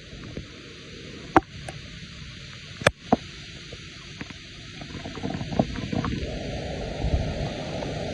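Strong storm wind buffeting the microphone in low rumbling gusts that build in the second half, over a steady hiss, with three sharp knocks between about one and three seconds in.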